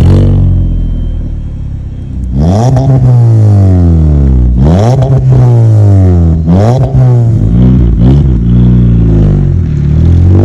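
Skoda Rapid's 1.4-litre turbocharged four-cylinder through a resonator-delete exhaust with a tuned rear muffler and dual chrome tips. The engine settles loudly for a couple of seconds, then is blipped about four times, each rev rising sharply and falling back, before a steadier climbing note as the car pulls away.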